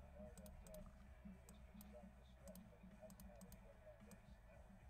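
Near silence: a low, steady room hum with a scattering of faint, short clicks at irregular intervals.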